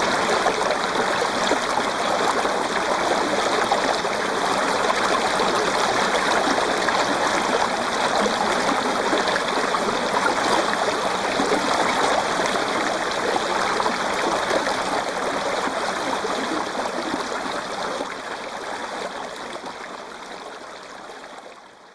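Steady sound of running water, like a stream, fading out over the last few seconds.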